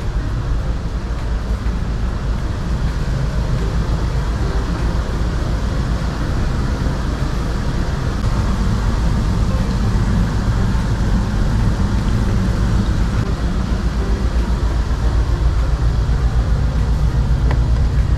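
Steady low rumble with a hiss inside a ferry's tiled public bath, with the jetted bath's water churning and the ship's machinery humming; it grows slowly louder.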